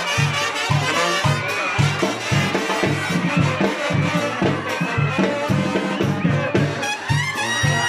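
Brass band music: horns playing a melody over a steady, bouncing bass line of about two to three notes a second.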